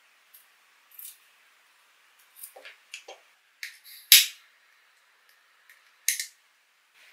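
Scissors snipping through a webbing strap, followed by the handling clicks of a small lighter. The loudest sound is a sharp snap a little past four seconds, and a second short burst comes about six seconds in.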